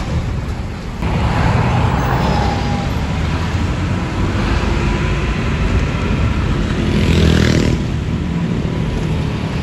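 City bus under way: its engine runs with steady road and traffic noise heard from inside the bus, and a brief louder rushing sound about seven seconds in.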